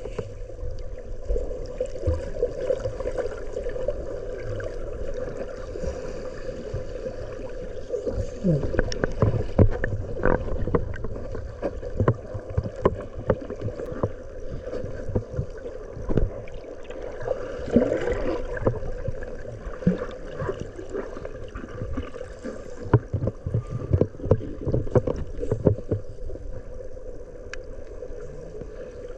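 A small boat out on the sea: a steady hum with water sloshing and irregular knocks against the hull.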